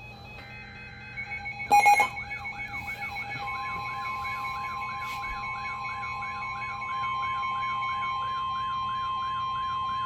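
Emergency alert radios going off for an incoming warning. A short burst of two-tone alert data sounds near the start, then a loud click about two seconds in. After that, a fast warbling alarm runs at about three sweeps a second, joined a second or so later by a steady high alert tone.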